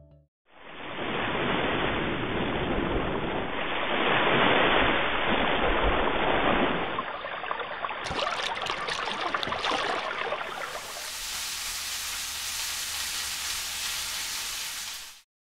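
Rushing water noise like surf, changing abruptly a few times, with a stretch of water splashing around a wading leg about halfway through.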